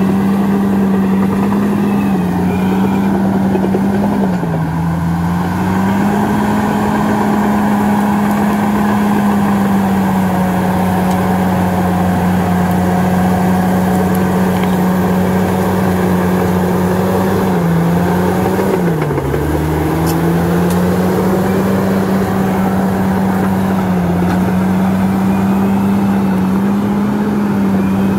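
Bulldozer's diesel engine running steadily under load, its pitch sagging briefly twice as it lugs and then recovering.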